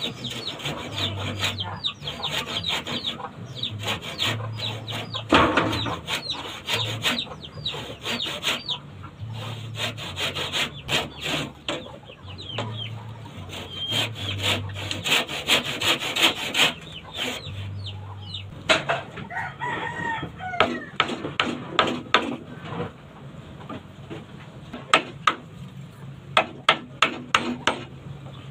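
Hand saw cutting through wood with steady back-and-forth rasping strokes for most of the first half. A rooster crows about twenty seconds in, and sharp knocks follow near the end as a piece of wood is worked with a blade.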